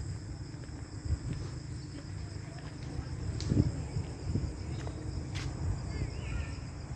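Crickets trilling steadily over a low rumble, with a few soft knocks.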